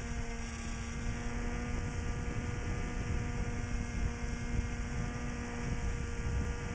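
Electric motor and 7-inch propeller of a small foam FPV plane, heard through its onboard camera's microphone in flight: a steady whine with rumbling wind noise under it.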